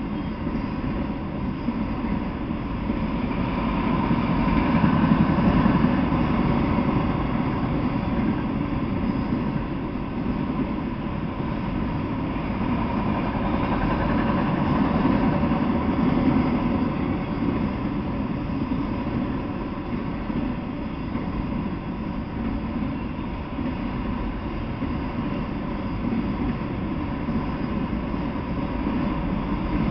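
Freight train of autorack cars rolling past: a steady rumble of wheels on the rails that slowly swells and eases in loudness.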